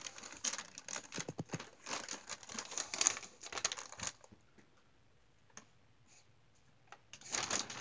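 Thin plastic shopping bag crinkling and rustling in short, irregular crackles as a cat shifts about inside it, for about four seconds; then it falls quiet, and the rustling starts again just before the end.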